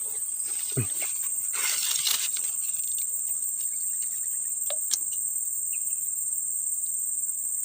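Steady, high-pitched insect chorus of the kind crickets make. A brief swell of noise comes about two seconds in, and there are a few faint clicks.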